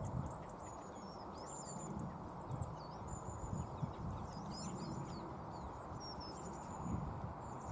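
Small birds chirping and twittering in short, high whistles throughout, over a gusty wind rumble on the microphone.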